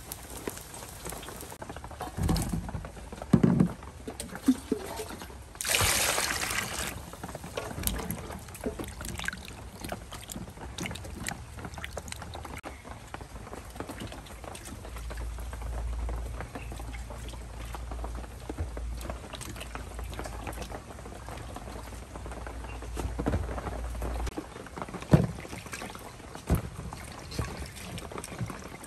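Water sloshing and splashing in a metal basin as vegetables are washed by hand, with a brief rush of water about six seconds in and a few sharp knocks.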